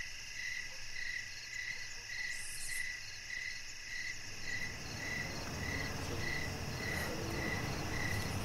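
Crickets chirping in a steady, even rhythm of about two chirps a second.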